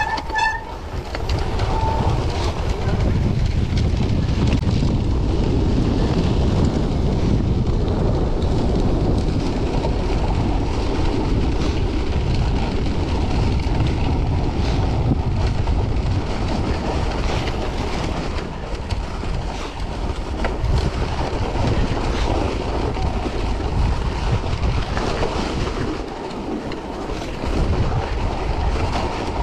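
Wind rushing over the microphone of a camera riding on a cyclocross bike, mixed with the tyres' noise on packed snow. The sound is steady and eases for a moment near the end.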